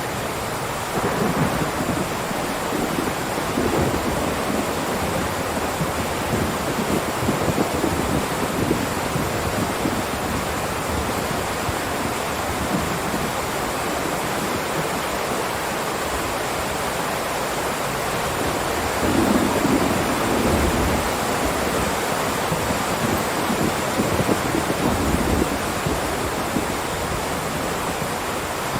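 Heavy rain pouring down in a steady, dense hiss, with irregular low rumbles swelling underneath, the strongest about two-thirds of the way through.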